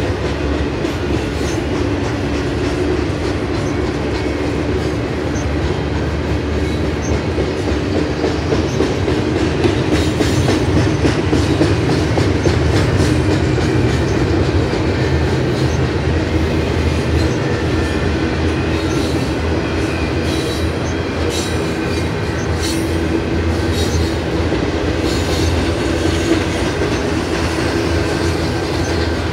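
Double-stack intermodal well cars rolling past: a steady rumble of steel wheels on rail. From about a third of the way in, a rapid clatter of clicks runs over it.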